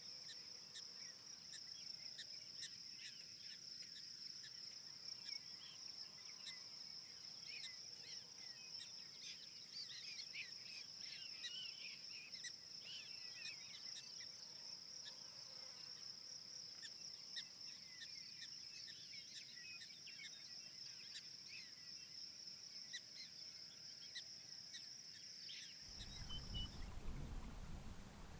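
Crickets or similar insects trilling: one steady high-pitched trill, with many short chirps from other insects mixed in. About two seconds before the end it cuts off suddenly and a low rushing noise takes over.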